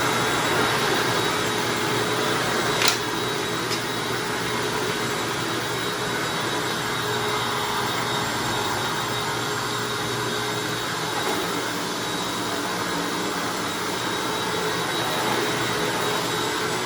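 Hoover Anniversary upright vacuum cleaner running steadily as it vacuums a hard floor, with one sharp click about three seconds in.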